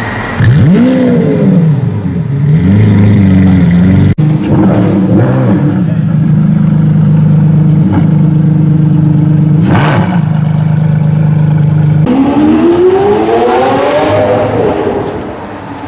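High-performance sports car engine revving: quick rises and falls in pitch at first, then held at steady revs for several seconds, then a long rising rev that drops away near the end.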